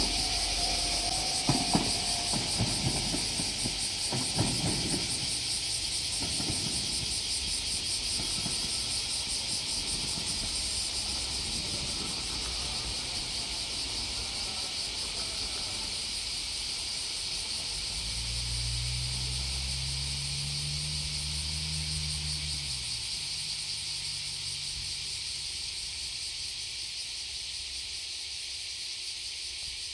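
A diesel railcar clattering over the rails in the first few seconds, the sound fading away, over a steady high-pitched drone of insects. About two-thirds of the way through, a low engine hum rises and then falls off over a few seconds.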